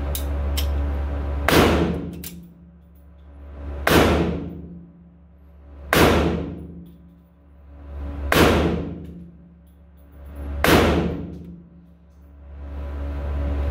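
Five shots from a CZ 97 .45 ACP pistol firing 230-grain full-metal-jacket rounds, about two to two and a half seconds apart. Each shot has a long echo off the concrete range lane, heard over a steady low hum.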